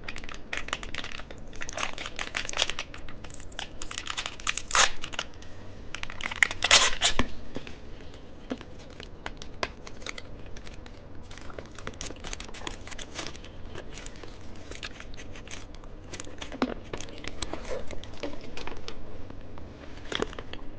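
Plastic candy wrapper crinkling and tearing as it is handled and opened, a dense run of small crackles with louder bursts around five and seven seconds in.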